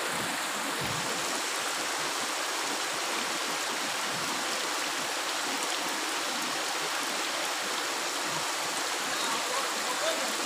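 Steady hiss of heavy rain falling on trees and vegetation, unchanging throughout.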